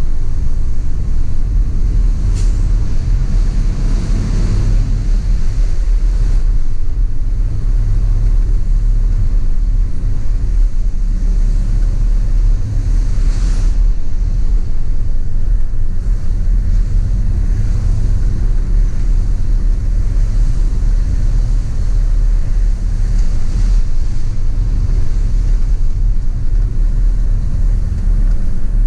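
Heavy truck on the move: a steady low rumble of engine and road noise, with two short hisses, one a couple of seconds in and one about halfway through.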